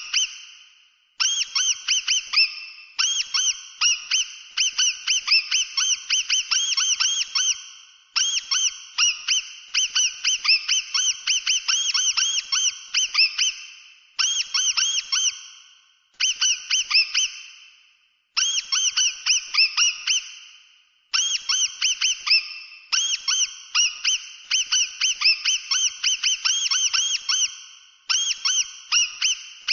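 Mouse squeaking: rapid runs of short, high-pitched squeaks, each rising and falling in pitch, several a second. The runs last one to five seconds with short pauses between them.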